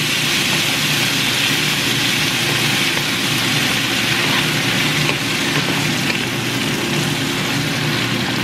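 Chicken, bell peppers and crema cooking in a skillet, sizzling steadily as they are stirred with a wooden spoon, over a steady low hum.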